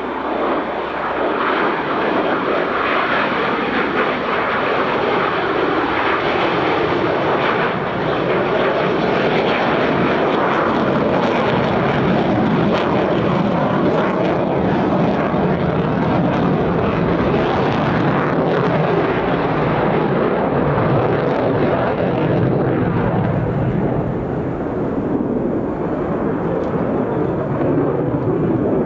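Mitsubishi F-2 fighter jets flying over, the single F110 turbofan engines giving a loud, steady rushing jet noise that eases slightly near the end.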